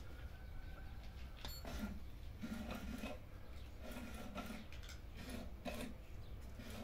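Small motor of an electronic cheese-shaped cat toy whirring in short repeated spurts, about one a second, as its wand pops in and out of the holes.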